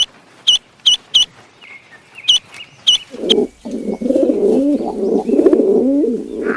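Birds calling: a series of short, sharp, high chirps, then from about three seconds in a busier, lower-pitched run of overlapping wavering calls that carries on to the end.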